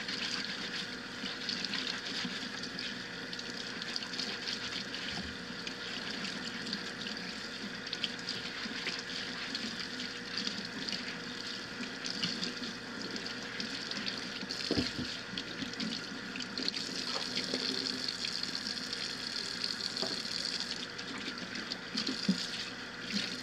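Kitchen tap running steadily into a stainless steel sink as potatoes are rubbed and scrubbed under the stream, with a few faint knocks.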